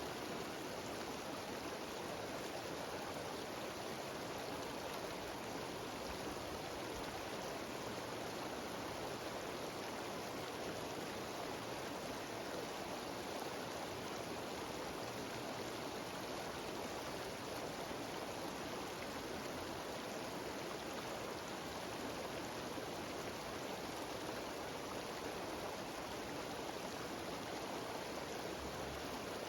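Mountain stream cascading down a small waterfall: a steady rush of water with no breaks.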